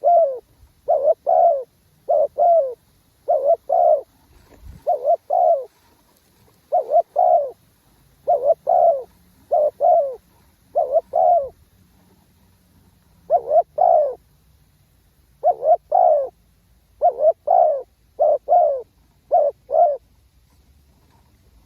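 Spotted dove cooing: short coos in pairs, the pairs repeated every second or two with a brief pause partway through, stopping a little before the end.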